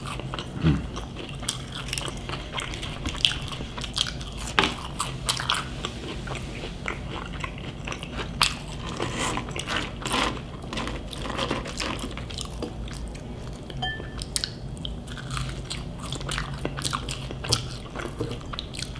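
A person chewing and biting fried fast food close to the microphone, with many irregular crisp crunches and wet mouth clicks.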